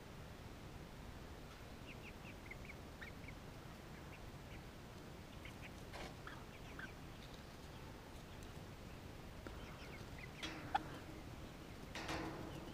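Young chickens peeping and chirping softly in short, scattered calls while being hand-fed, with louder calls about ten seconds in and again near the end.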